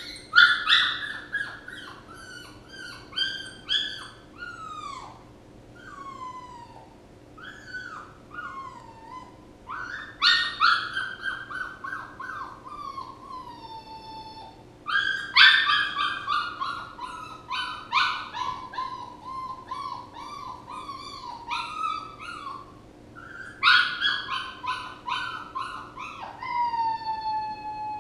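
Puppy whining: high-pitched cries that slide down in pitch, coming in bouts with short lulls between.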